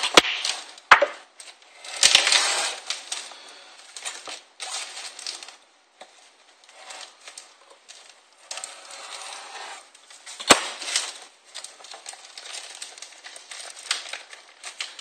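Handling noises from parts and tools on a workbench: a few sharp clicks and knocks of small hard parts set down, with rustling and scraping between them.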